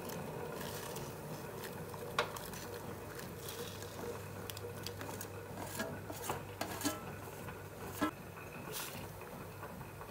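Raw potato matchsticks being tipped and pushed by hand from a stainless steel bowl into a saucepan of boiling water, with several sharp metal clinks of the bowl and a spoon against the pot, over the steady hiss of the boiling pot.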